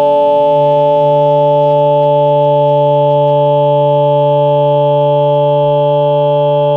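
A loud, steady droning chord of several held tones that does not change: a sustained synthetic drone.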